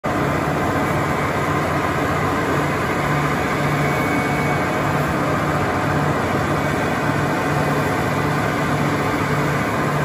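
Caterpillar D7G crawler bulldozer's diesel engine running steadily, with a regular low pulsing in its note.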